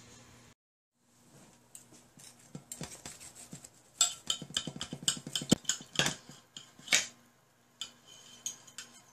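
A fork breaking into the flaky baked crust of a chicken pot pie on a ceramic plate: crackling pastry and a string of sharp clinks of metal on the plate, busiest and loudest in the middle.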